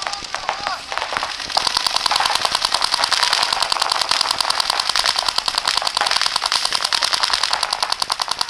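Paintball markers firing: a few scattered shots, then about a second and a half in a rapid, steady stream of shots, many a second, that keeps going.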